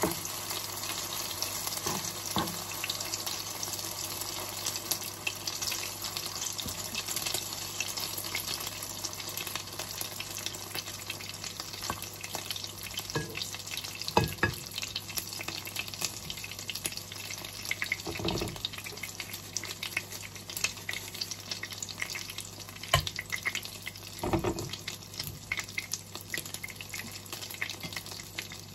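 Tortang okra, okra and beaten egg, frying in hot oil in a pan: a steady sizzle full of fine crackles. A few knocks stand out, about halfway through and again later.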